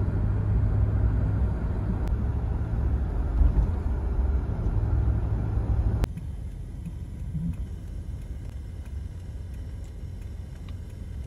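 Low road and engine rumble inside the cabin of a moving Toyota. About six seconds in it cuts off sharply to quieter outdoor street background.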